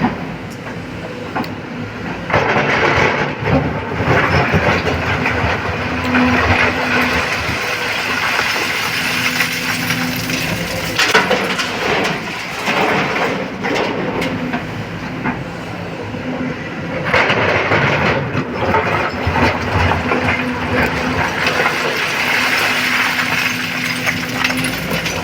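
Hydraulic excavator's diesel engine working under load while loading rock into a dump truck, its note rising and falling, with several loud stretches of rock and bucket clatter.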